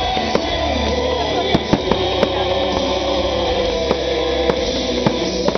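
Fireworks going off in a rapid series of sharp bangs and crackles over loud music with long held notes.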